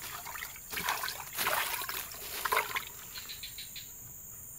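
Footsteps rustling and crackling through dry leaf litter for about two seconds, over a steady high drone of forest insects.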